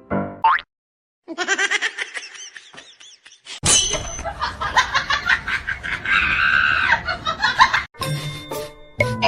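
Several short clips cut abruptly one after another, filled with music and laughter.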